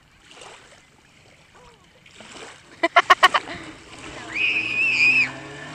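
A quick string of about six loud, sharp calls, then a steady high whistle lasting about a second. Under them, a jet ski's engine hums low and far out on the water.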